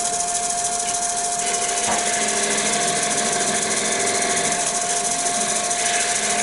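Wood lathe running with a steady whine while a chisel smooths the face of the spinning wooden blank.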